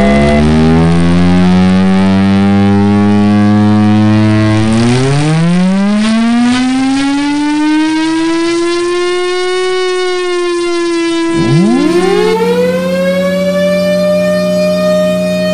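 A loud siren with many overtones. Its pitch holds low for a few seconds, then climbs slowly and levels off, drops sharply about eleven seconds in, and climbs quickly again to a held higher tone.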